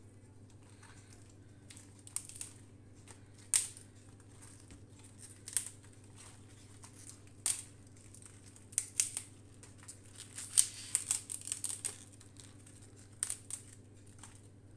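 Crisp leafy green stalks being handled and turned over by hand, crackling and rustling in irregular sharp bursts, busiest about two-thirds of the way through, over a faint steady low hum.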